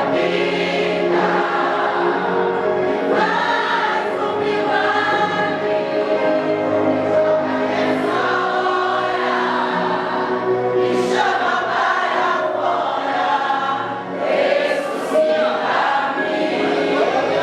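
Choir singing a gospel song, several voices together on sustained, shifting notes.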